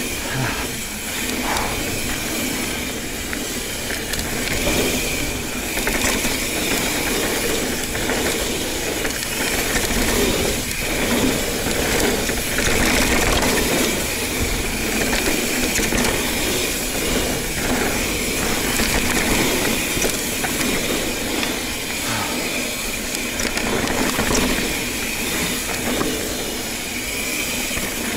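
A mountain bike being ridden along a dirt trail: tyre noise and a steady rattle and clicking from the bike, with wind hiss on the microphone.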